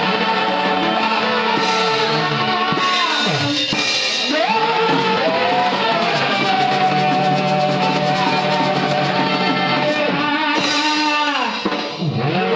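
Live praise and worship music with guitar and drums, its sustained sliding melody lines suggesting singing or a lead instrument.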